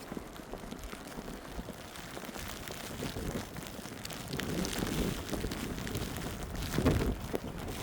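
Footsteps crunching in fresh snow, with wind buffeting the microphone and growing louder about halfway through.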